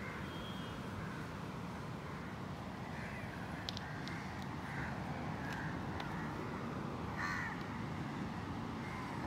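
Short animal calls over a steady low background hum: a run of several a few seconds in, then a louder one later, with a few faint clicks.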